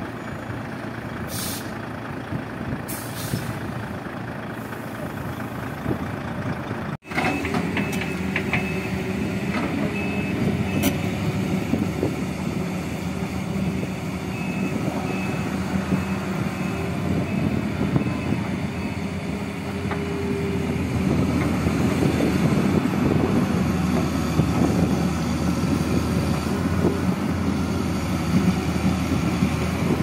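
Volvo semi-truck's diesel engine running with two short air-brake hisses. Then a Caterpillar 325B excavator's diesel engine working steadily, with a reversing alarm beeping in spells.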